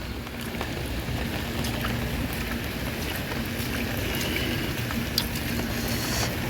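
Heavy rain falling steadily in a windy storm, an even rushing noise with a faint steady hum underneath.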